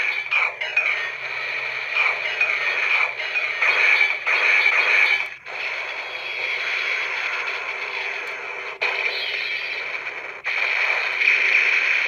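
Bandai CSM Den-O Belt's built-in speaker playing the finishing-attack sequence triggered by a pass swipe: electronic effects with Momotaros's voice lines. The sound is thin, with no bass, and breaks off briefly about five, nine and ten seconds in.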